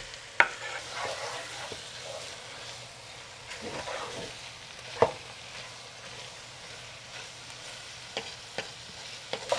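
Cubed raw meat and chopped onions sizzling in a pot on high heat while a wooden spoon stirs them, with sharp knocks against the pot about half a second and five seconds in.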